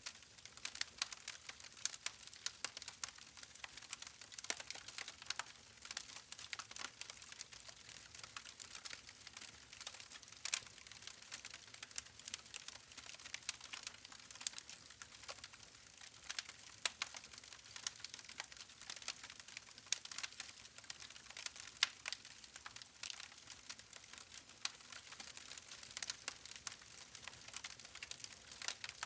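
Campfire of burning logs crackling: a continuous run of small, irregular pops and snaps over a faint hiss.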